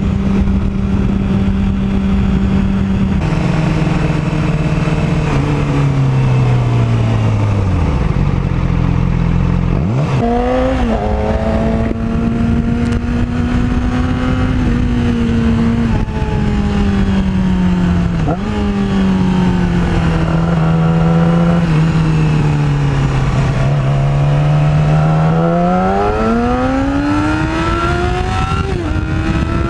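2006 Yamaha R6's inline-four engine heard from the rider's seat with wind rushing past. It runs steadily, then its pitch sinks low as the bike rolls off about eight seconds in, and it revs up sharply near ten seconds. It then runs with quick pitch dips at gear changes and climbs in a long acceleration near the end.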